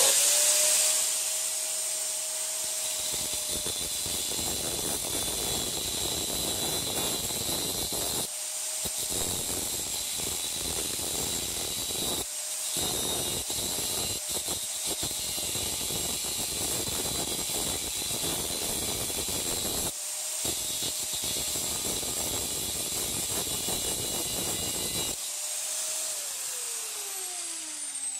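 Angle grinder cutting a groove along the weld seam of a microwave oven transformer's steel core: a steady motor whine over a harsh grinding noise, which breaks off three times for a moment as the disc is lifted. Near the end the disc comes off the steel and the motor winds down, its whine falling in pitch.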